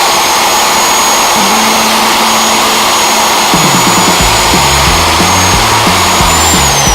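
Reciprocating saw running flat out, its motor giving a steady high whine as the blade slices through the nails holding a pallet's boards. The whine falls away near the end as the motor winds down.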